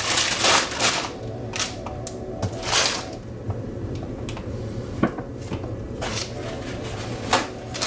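Kitchen counter handling noises: packaging rustling in bursts, and two sharp knocks on the counter about five seconds and seven seconds in, over a steady low hum.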